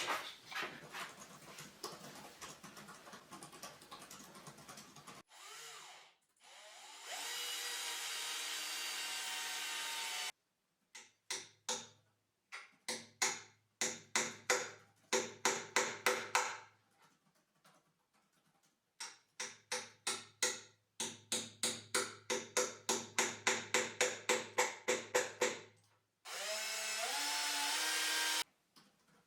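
Woodworking power tool starting up with a rising whine and running steadily in short spells, with longer stretches of rhythmic strokes, about three a second, in between.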